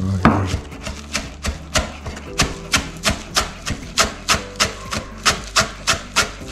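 Chef's knife chopping chives on a plastic cutting board: steady, even knocks of the blade on the board, about three a second.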